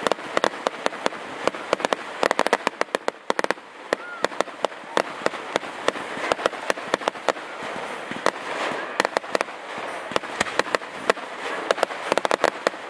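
Fireworks going off: a rapid, irregular series of sharp bangs and crackling pops with no break.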